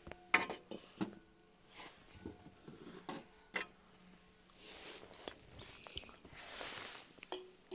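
Handling noise: scattered sharp clicks and knocks, the loudest about half a second in, with a few soft rustling swells.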